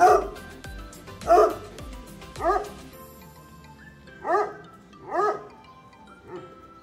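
A pack of tricolour Anglo-French hounds barking: single barks about once a second, the first few loudest, over background music.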